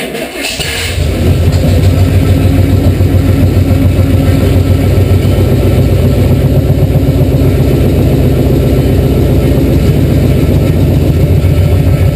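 GMC one-ton 4x4 truck's engine starting for the first time after the rebuild work: it catches in the first second and settles into steady running.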